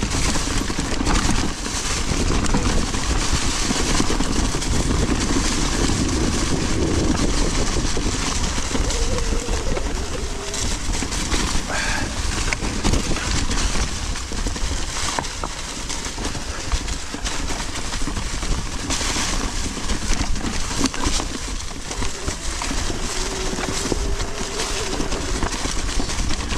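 Mountain bike riding over a rough dirt trail: a continuous rumble and rattle of tyres and frame over the ground, with wind buffeting the helmet-camera microphone.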